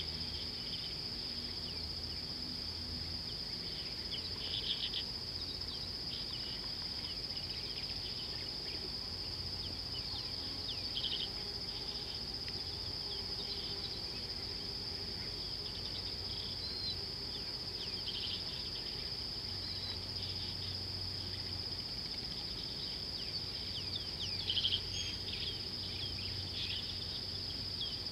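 A steady, unbroken high insect drone at one pitch, with scattered short bird chirps and calls below it. A few calls stand out a little louder, about five and eleven seconds in and again near the end.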